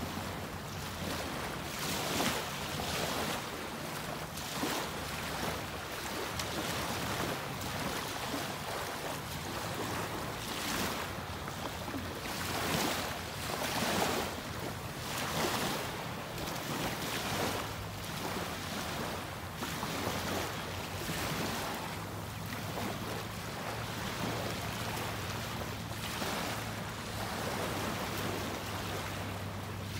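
Small waves lapping and washing onto a sandy beach, swelling every second or two, with some wind and a faint steady low hum underneath.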